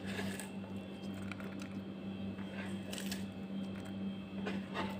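Sliced raw onions being dropped and pushed into a saucepan of raw vegetables: soft rustles and a few light taps scattered through, over a steady low hum.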